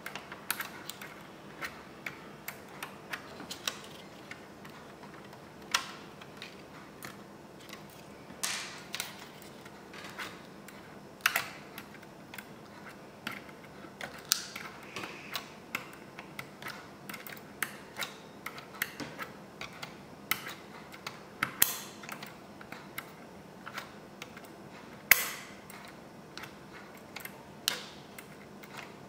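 Irregular small clicks and taps from hands handling parts in the open underside of an HP Pavilion dv6000 laptop, with a few sharper snaps among them.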